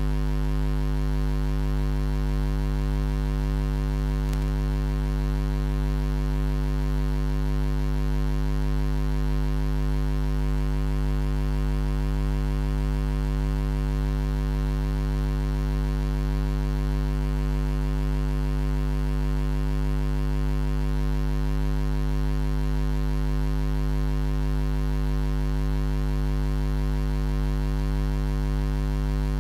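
Steady electrical mains hum, a low buzz with many overtones that never changes.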